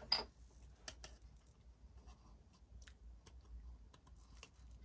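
Long-nose pliers clicking and tapping against the soap dispenser's housing and internal parts as a piece is pressed back into place: one sharp click just after the start, then scattered faint clicks.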